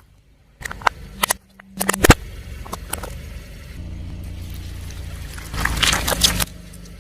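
Car tyre rolling over and crushing brittle objects: a series of sharp cracks and snaps, the loudest about two seconds in. Then the car's engine runs low and steady, with a crackling crunch about six seconds in.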